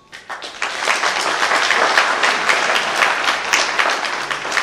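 Audience applauding: many people clapping together. It starts abruptly, builds over about the first second and then holds steady and loud.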